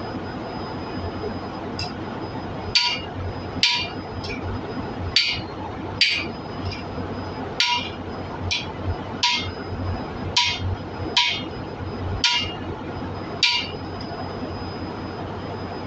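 A hammer strikes a steel driver on a cylinder head, pressing a new exhaust valve seat insert into its bore. There are a dozen or so sharp, ringing metal-on-metal blows at about one a second, some lighter between the heavy ones.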